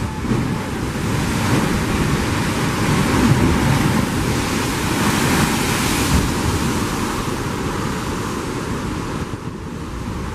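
Sea surf surging and churning in a narrow limestone chasm, a steady rushing that swells in the middle and eases near the end, with wind buffeting the microphone.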